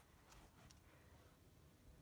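Near silence: faint room tone with two faint clicks.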